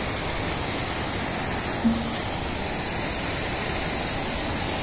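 Steady rush of flowing river water, an even hiss that neither rises nor falls.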